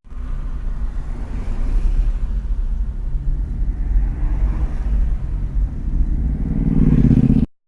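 Road and engine noise of a moving car heard from inside the cabin: a steady low rumble that swells into a louder engine hum near the end, then cuts off suddenly.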